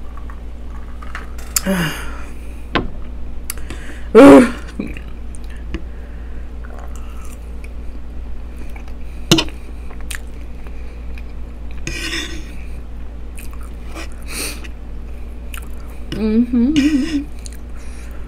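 Close-up eating sounds: a person drinking from a glass, then chewing and swallowing mouthfuls of loaded baked potato, with a fork clicking against a wooden board. A short vocal sound about four seconds in is the loudest moment, and a wavering hum comes near the end.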